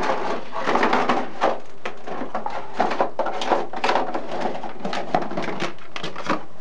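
Clear plastic packaging being handled and pulled apart as a headset is unboxed: an irregular crinkling and crackling with many sharp clicks, over the steady noise of a loud boiler in the room.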